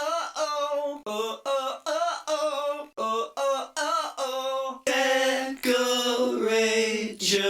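Wordless a cappella vocal noises from a male voice: short clipped sung syllables, about three a second, giving way about five seconds in to longer held, fuller notes.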